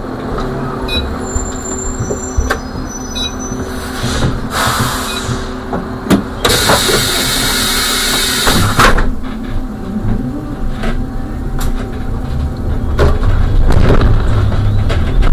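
Trolleybus heard from the driver's cab: a steady electric hum, then a loud hiss of compressed air for about three seconds midway, likely the air brakes releasing. Near the end the low rumble grows as the bus pulls away.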